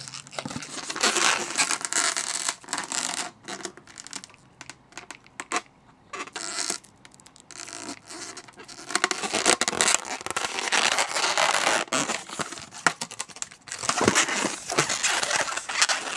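Fingers tying the nozzle and tail of a latex modelling balloon into a knot: irregular rubbing and scratching of stretched latex with scattered small clicks, quieter for a few seconds in the middle and busier in the second half.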